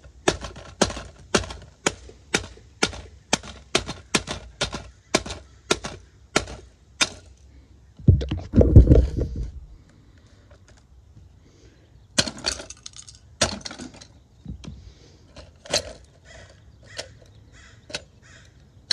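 Sharp, regular clicking, about two clicks a second, from a mallet-damaged CD player as it tries to play a disc. About eight seconds in comes a loud, low clatter from the player being handled and its cracked lid opened, followed by scattered plastic clicks as the lid is worked.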